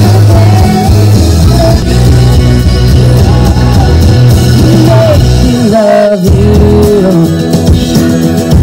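A song with a singing voice over a heavy bass line, the bass dropping out briefly about six seconds in.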